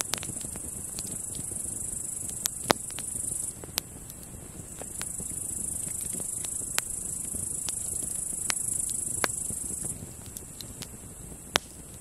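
Wood campfire crackling, with scattered sharp pops, the loudest about two and a half seconds in. Under it runs a steady high-pitched buzz of grasshoppers that stops twice, about three and a half and ten seconds in, and resumes each time.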